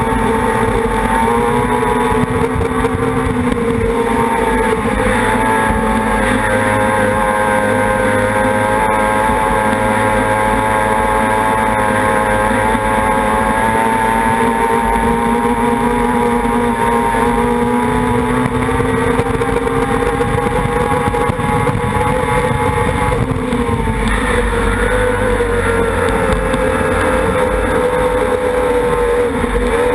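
Mercury racing outboard on a tunnel raceboat running at high speed. Its note holds near-steady with small dips and rises in pitch, over rushing water spray and wind.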